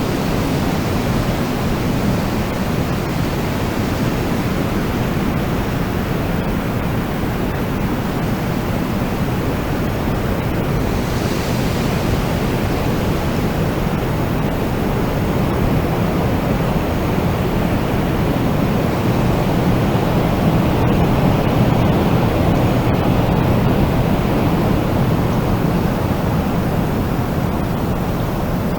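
Wind blowing steadily as a dense, low rushing noise, swelling a little in the last third, with a brief brighter gust about eleven seconds in.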